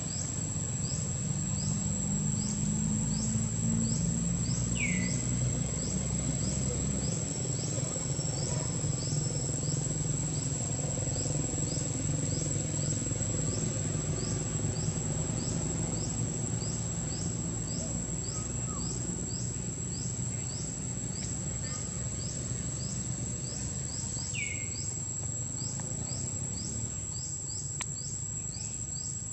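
Insects droning at a steady high pitch, with a short repeating chirp about twice a second, over a low background rumble. Two brief falling calls stand out, one early and one late.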